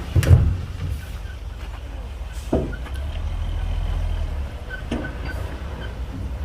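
Heavy diesel earthmoving machinery running with a steady low rumble, punctuated by three sharp metallic knocks, the loudest just after the start and the others about two seconds apart.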